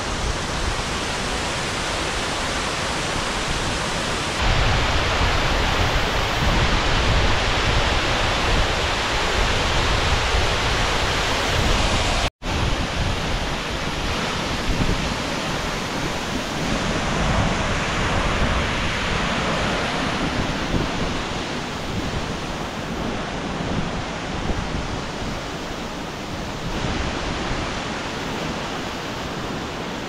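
Waterfall rushing down over a rocky cascade, a steady roar of falling water. It grows louder about four seconds in and breaks off for an instant about twelve seconds in.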